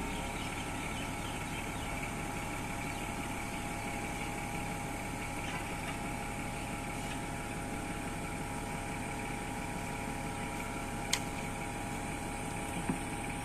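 Zoomlion 5-ton forklift's engine idling steadily while the truck stands still, with a sharp click about eleven seconds in and a small knock near the end.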